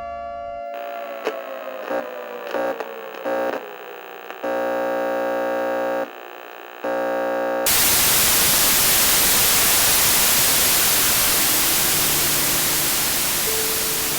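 A buzzy electronic tone that slides down in pitch and stutters on and off, then a sudden cut to loud television static hiss about eight seconds in, which slowly fades, with faint steady tones creeping in near the end.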